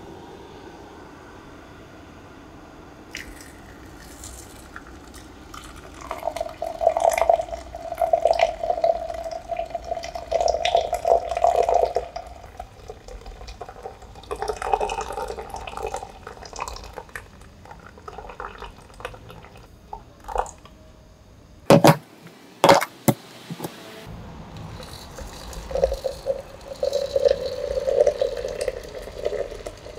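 Hot water poured in a thin stream from a gooseneck kettle into a glass French press of ground coffee, in several stretches of a few seconds each. A few sharp knocks come about two-thirds of the way through.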